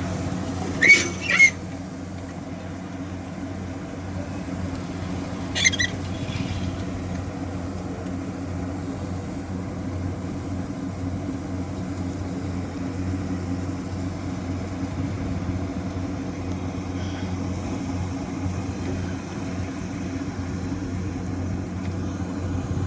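Kubota combine harvester's engine running at a steady drone, with three short high-pitched squeaks, two about a second in and one about six seconds in.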